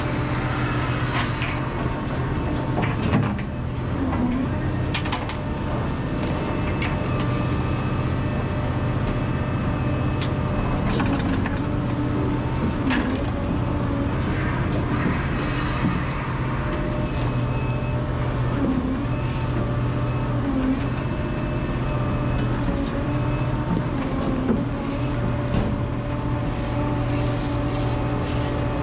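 Liebherr R976 crawler excavator's diesel engine running steadily under load, with the whine of its hydraulics as the bucket digs and lifts soil. A few short knocks from the bucket and attachment are heard along the way.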